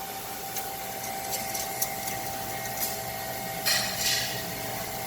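Factory background noise: a steady machine hum with a few light clicks, and a short burst of hiss a little under four seconds in.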